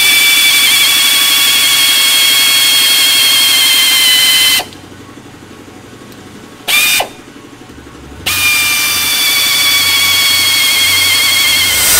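Pneumatic air ratchet running under load, a loud hiss of exhaust air with a high whine that sags slightly in pitch as it spins. It stops about four and a half seconds in, gives one short burst near seven seconds, then runs steadily again.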